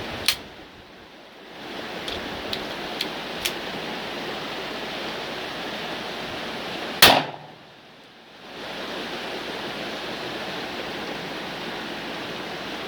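Two rifle shots about seven seconds apart, the second the louder, each sharp crack followed by a brief drop in the steady background hiss. A few faint clicks between them.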